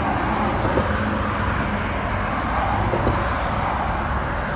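Steady rumble and hiss of road traffic.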